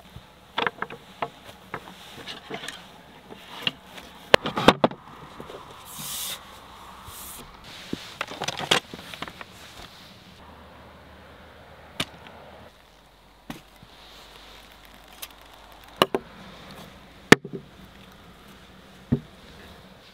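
Intermittent wooden knocks, clatters and rustling as a folding bamboo table and wood-and-canvas camp chairs are set up on rocky ground and dry sticks are handled. Near the end come a few sharp knocks of things being set down on the wooden tabletop.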